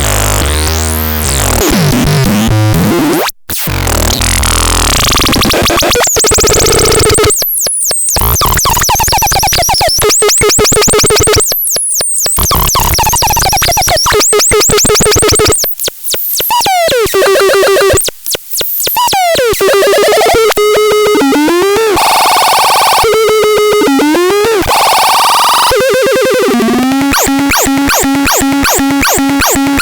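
Synthesizer playing harsh, noisy electronic tones with sweeping and zigzagging pitch glides, cutting out briefly a few times. Near the end it settles into a quick, regularly repeating pitched pattern.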